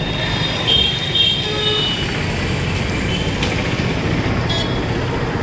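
Street ambience: steady road-traffic noise, with a few short high-pitched tones about a second in.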